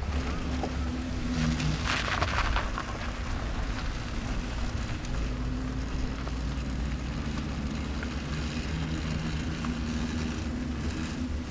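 Engine of a recovery vehicle running at low revs as it tows a wrecked race car slowly along a dirt track: a steady low rumble. A brief rush of noise comes about two seconds in.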